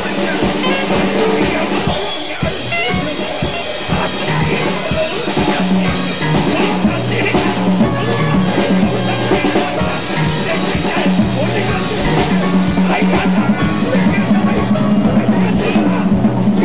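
Small band playing live: a drum kit with bass drum and rimshots over held, stepping low notes, with a voice singing.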